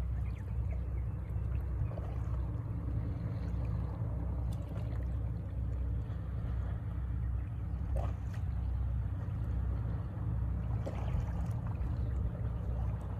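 Low, steady rumble of a distant Japan Coast Guard patrol boat's engines as it runs past at speed.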